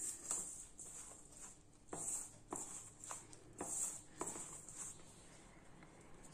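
A hand mixing crumbly gram-flour and rice-flour dough in a stainless steel bowl, fingers scraping and knocking against the metal in irregular strokes as water is worked in little by little; the strokes thin out in the last second or so.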